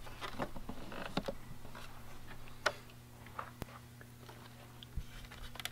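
Light handling noises: scattered small clicks and rustles of plastic parts and wiring being moved about, with one sharper click about two and a half seconds in, over a steady low hum.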